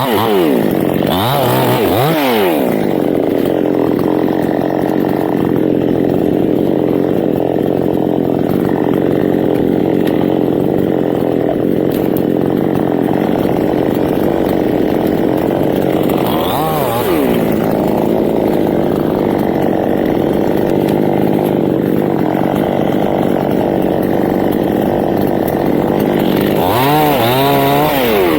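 Two-stroke chainsaw running hard, cutting teak wood. Its engine pitch drops and picks back up about a second in, again about halfway through, and near the end.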